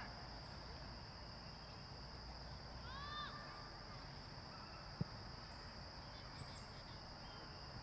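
A single sharp thump of a soccer ball being kicked, about five seconds in, over a steady high hiss of outdoor field ambience. A short call, a distant voice or a bird, is heard about three seconds in.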